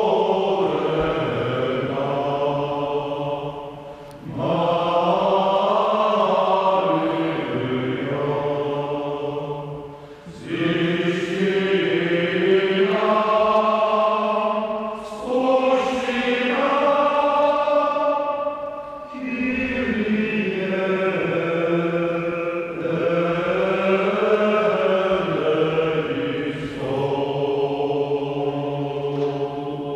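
Male voice choir singing a sacred piece in sustained phrases, with short breaks between them, fading away near the end.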